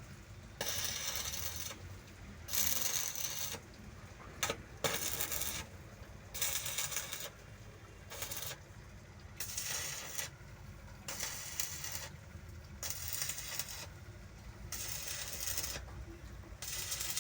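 Electric arc welding: the arc crackles in short bursts of about a second each, struck about ten times with brief pauses between, over a steady low hum.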